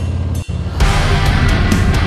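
Loud background music with a steady drum beat, which dips briefly about half a second in and then comes back.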